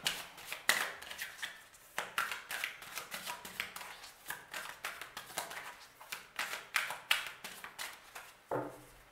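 A deck of oracle cards being shuffled by hand: an irregular run of short, soft card clicks and slaps.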